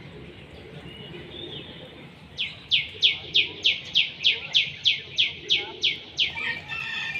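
A bird calling: after a few faint chirps, a loud run of about fourteen quick notes, each sliding down in pitch, about three or four a second, breaking into jumbled chirps near the end.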